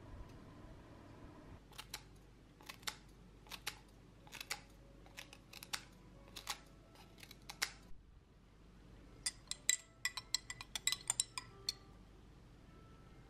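Scissors snipping pandan leaves into a small glass jar: sharp snips about once a second, then a quicker flurry of snips and clicks about two-thirds of the way through.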